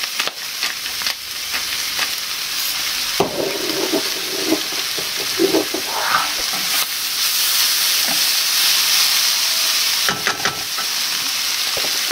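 Tofu, black bean and vegetable filling frying in a hot non-stick pan with a steady sizzle, while a wooden spatula stirs through it, scraping and tapping against the pan.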